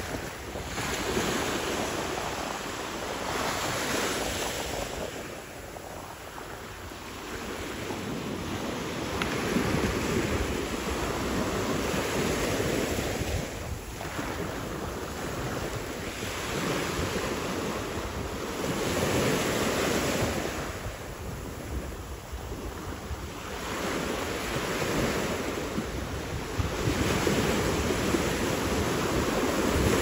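Small waves breaking and washing up a sand-and-pebble shore, swelling and falling back about every five or six seconds, with wind rumbling on the microphone.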